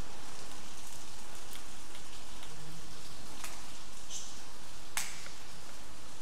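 Steady hiss from a handheld camera's microphone, broken by a few sharp clicks, the loudest near the end. A brief faint low tone sounds a little before the middle.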